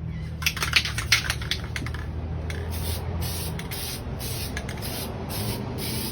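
Spray coating being sprayed onto wooden handstand cane posts in short, repeated hisses, about two a second, over a low steady hum. A quick run of sharp clicks comes about half a second to a second and a half in.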